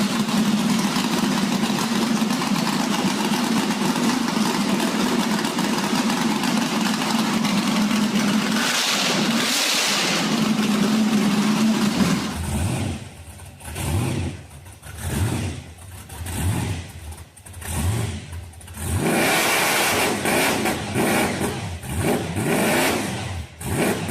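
Muscle car engine running steadily, then, about halfway in, revved in a string of short blips, each rising and falling in pitch.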